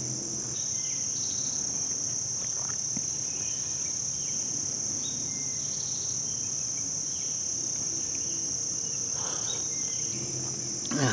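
A steady, high-pitched chorus of insects without a break, with a few faint bird chirps scattered through it.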